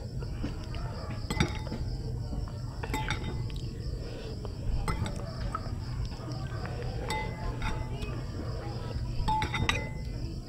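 A metal spoon clinking against a small glass bowl as sauce is scooped out and spooned over rice. There are several sharp separate clinks, the loudest about a second and a half in and a quick cluster near the end.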